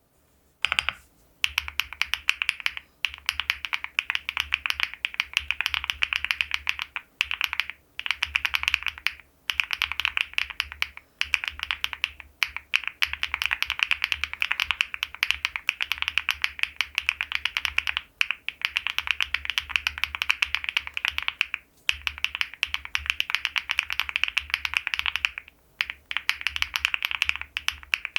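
Fast typing on an Owlab Vento80 custom mechanical keyboard: a dense, rapid stream of thocky keystrokes, broken by short pauses every few seconds.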